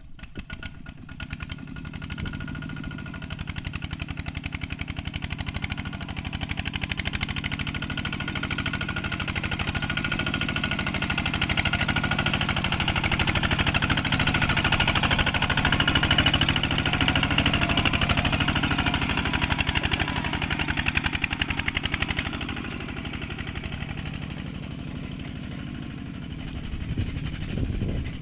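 ZT 155 two-wheel walking tractor's single-cylinder diesel engine running steadily under load as it pulls a laden cassava trailer, growing louder as it passes close in the middle, then fading as it drives away.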